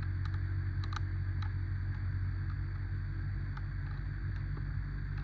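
A steady low mechanical hum with a few faint, sharp clicks.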